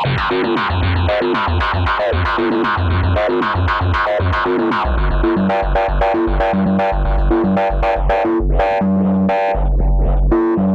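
Arturia MiniFreak synthesizer playing a fast, repeating sequenced pattern of short plucky notes over a stepping bass line, in a techno/house groove with no external effects.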